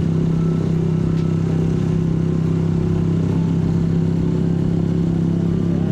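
Benelli Motobi 200 Evo's single-cylinder engine running at a steady speed while riding, its pitch holding even throughout.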